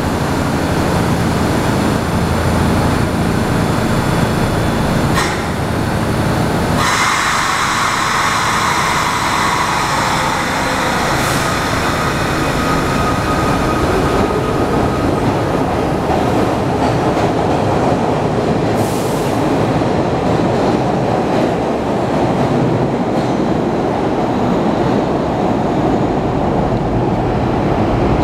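SEPTA Broad Street Line subway train pulling out of the station: a steady low hum at first, then about seven seconds in a sudden rise with high whining tones as it starts to move, which fade after a few seconds. A dense rumble of wheels on rails follows as the cars run past and away.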